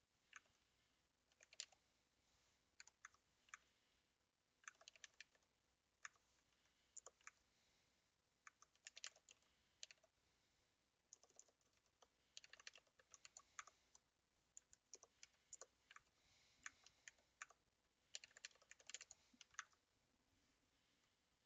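Faint typing on a computer keyboard: irregular clusters of key clicks broken by short pauses.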